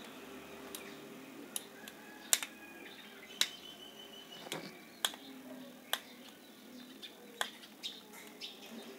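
Irregular sharp clicks and taps of small metal and plastic spinning-reel parts and tools being handled as the reel body is opened, about a dozen in all, the loudest a little over two seconds in.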